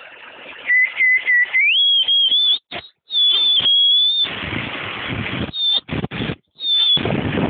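A high, steady whistling tone that jumps up in pitch about two seconds in, over the rushing noise of a heavy rainstorm, most likely wind whistling through gaps in the house. The sound cuts out abruptly to silence several times.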